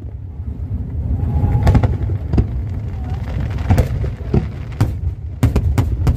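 Aerial fireworks going off in an irregular series of sharp bangs, several in quick succession near the end, over a steady low rumble.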